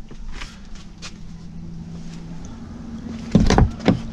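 Rustling, knocks and bumps of a person climbing out of a car's front seat, with a few heavy thumps about three and a half seconds in. A steady low hum runs underneath and shifts to a slightly higher pitch midway.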